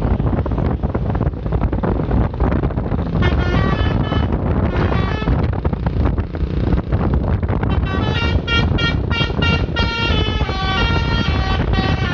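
Melodic Basuri 'telolet' air horn on a road vehicle playing a tune of stepping notes, in two spells: about three seconds in, then again from about eight seconds on. Steady road and wind noise runs underneath.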